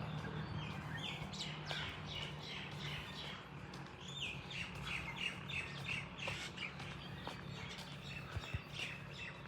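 Small bird chirping in quick runs of short falling notes, over a steady low hum.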